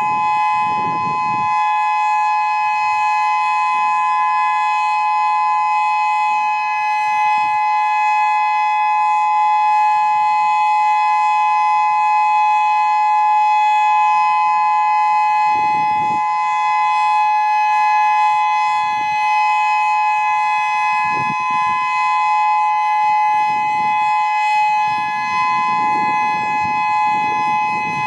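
Whelen WS-2000 electronic outdoor warning siren sounding a loud, steady two-pitch alert tone that does not rise or fall.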